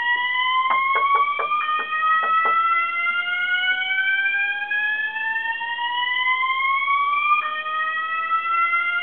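Building fire alarm sounding a slow rising whoop tone, each sweep lasting about six seconds and starting over about a second and a half in and again near the end; the alarm is another false alarm. A few short taps sound in the first few seconds.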